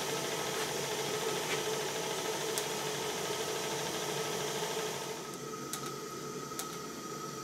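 Stuart 7A model steam plant in steam: the small vertical steam engine running steadily off its brass boiler, a fast mechanical whirr over a hiss of steam. About five seconds in this gives way to a quieter steady hiss with a few light clicks.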